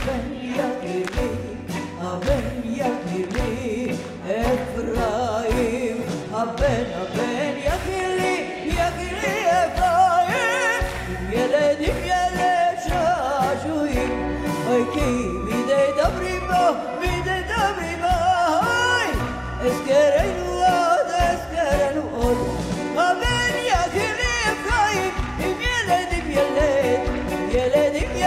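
A woman singing an ornamented melody with a strong wavering vibrato, backed by a live band with drum kit and cymbals.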